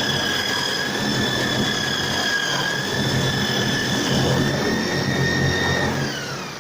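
Electric drill driving a homemade wood lathe, its motor running at steady speed with a high whine. Near the end the whine falls in pitch as the drill is let go and spins down.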